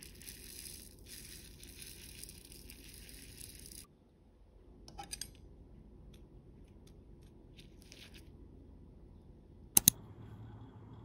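Granulated sugar sprinkled from a spoon onto strawberries in a bowl, a steady grainy hiss for about four seconds, followed by a few light ticks and a short hiss. Near the end come two sharp clicks in quick succession, the loudest sounds here.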